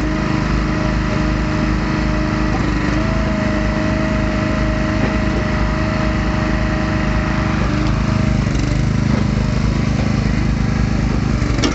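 Log splitter's small gasoline engine running steadily; its pitch shifts slightly a couple of times as the load changes.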